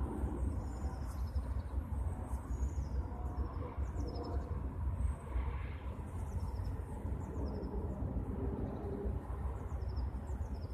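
Steady low outdoor rumble, with faint, short, high-pitched chirps of small birds every second or two.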